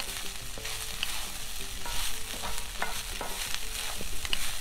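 Leftover cooked rice frying in hot oil in a black metal kadai, stirred and scraped around the pan with a wooden spatula. A steady sizzle runs throughout, with scattered sharp clicks and scrapes of the spatula against the pan.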